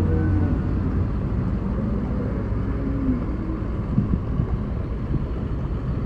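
Pickup truck towing a livestock trailer driving along a wet road: steady engine rumble and tyre noise, with a few faint knocks near the end.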